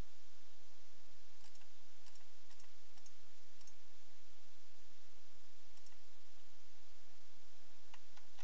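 Steady background hiss of a desktop recording microphone, with a few faint, scattered computer mouse clicks.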